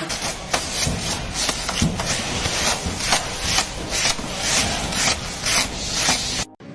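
Repeated scraping strokes, about two a second, cutting off suddenly near the end.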